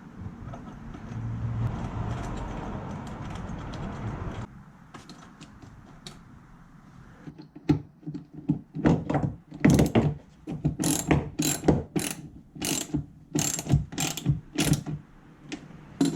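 A ratchet wrench clicking in short strokes, about two a second, tightening the nut onto a new earthing bolt with a copper washer. It is preceded by a steady mechanical noise lasting about four seconds.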